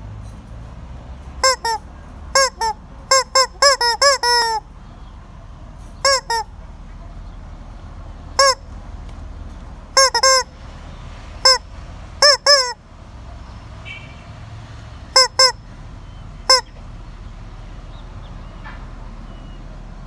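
A chicken making loud, honk-like squawks: short calls, one at a time or in quick runs of three to five, with gaps of one to three seconds between.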